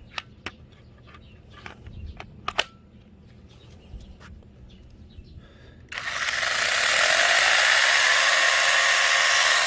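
A few sharp clicks, then about six seconds in a mini cordless battery chainsaw switches on and runs at full speed with no load: a loud, steady whir of the motor and chain.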